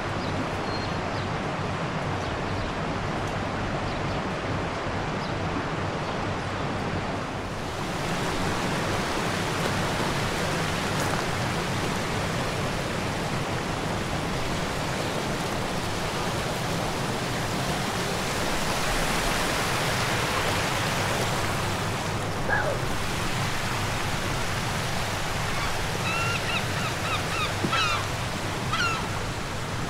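Steady rush of a fast-running stream, a little louder from about eight seconds in, with a bird calling several times in short chirps near the end.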